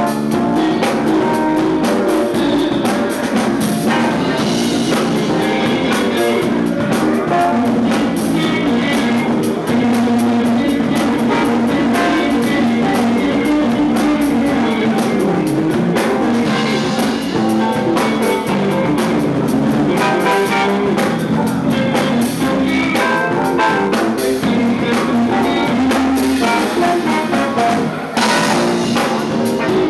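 Live band playing an instrumental with electric bass, electric guitar, keyboard and drum kit.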